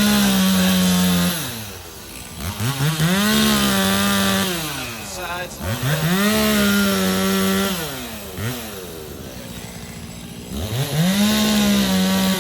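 Chainsaw carving a log: four times it revs up into a cut, holds high for a second and a half to two seconds, then drops back to idle. There is a longer idle lull before the last cut.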